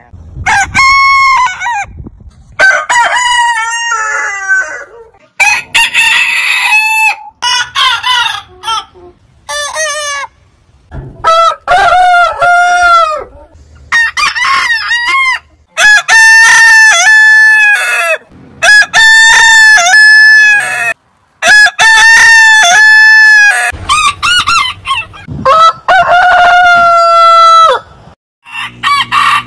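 Roosters crowing, about a dozen crows from several different birds one after another. Each crow rises and falls over a second or two, and one near the end is held for about four seconds.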